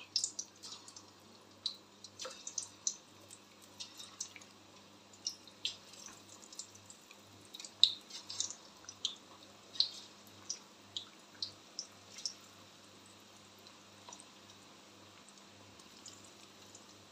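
Battered chicken pakoras frying in hot oil in a kadai: irregular crackles and pops of spattering oil as the pieces are lowered in one by one, thinning out over the last few seconds.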